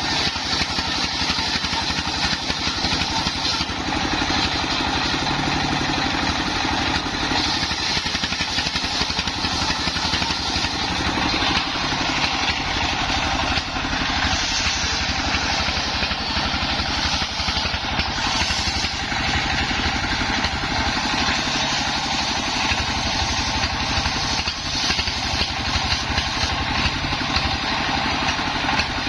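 Engine-driven mobile circular sawmill running steadily, the engine's fast firing pulses under a high hiss that swells and fades every few seconds.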